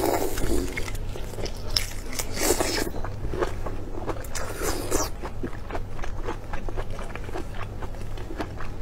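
Close-miked eating of large shell-on prawns: biting and chewing, with many small crunching and crackling clicks and two louder bites, about two seconds in and around five seconds in.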